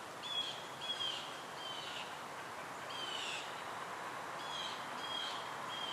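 A small bird calling with a string of short, falling chirps, spaced about half a second apart with a few longer gaps, over steady outdoor background hiss.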